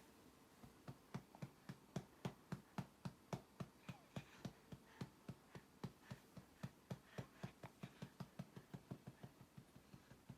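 Soft, rapid tapping or ticking in an even rhythm, about four taps a second.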